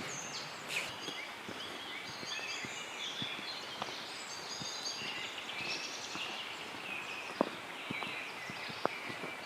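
Songbirds singing in a forest at dusk: many short, high chirps and trills over a steady outdoor hiss, with a couple of sharp clicks in the second half.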